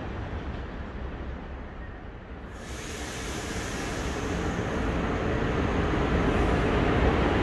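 A fading low rumble, then a cut to a Hyundai Rotem-built TRA EMU900 electric multiple unit pulling into an underground station, its rumble growing steadily louder as it approaches.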